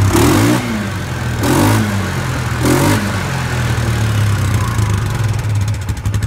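2015 Polaris Ace 325 engine revved in neutral three times in quick succession, each rev rising and falling, then settling into a steady idle.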